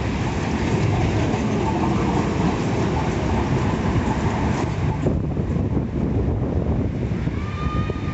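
Strong wind buffeting the microphone, a loud, dense rumble that eases a little about five seconds in. A brief pitched whistling tone sounds near the end.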